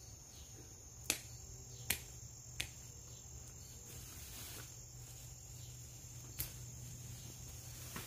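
Crickets trilling steadily and high-pitched, with four sharp clicks: about a second in, near two seconds, shortly after, and once more past six seconds.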